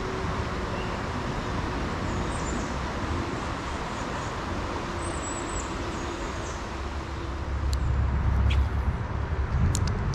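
Steady rush of a swollen, fast-moving creek, with a low rumble swelling for a few seconds near the end and a few sharp clicks.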